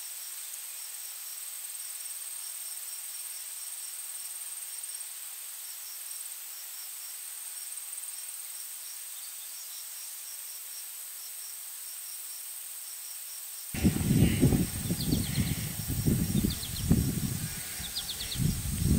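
Crickets chirping in rapid, uneven groups over a steady high-pitched drone and hiss. About fourteen seconds in it cuts suddenly to a much louder outdoor recording with uneven low rumbling and short high chirps.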